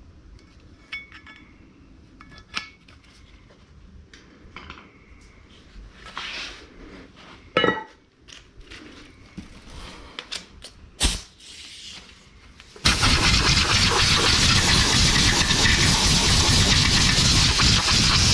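Metal tools and brake parts clinking and knocking now and then, a few strikes ringing briefly. About two-thirds of the way through, a loud steady hiss starts suddenly and keeps going.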